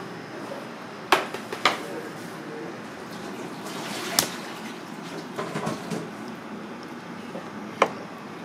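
Four sharp knocks from an aluminium tray being handled on a steel counter, two close together about a second in, one near the middle and one near the end, over a steady background noise.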